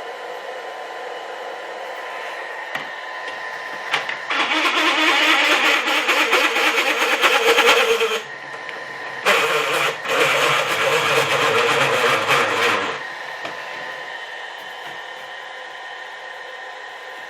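Table saw running steadily, cutting through wood twice. The first cut starts about four seconds in and lasts about four seconds; the second, after a short drop back to the running hum, lasts about three and a half seconds.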